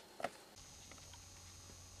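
Near quiet: a couple of faint soft clicks and rustles in the first half second, then only a faint steady hum.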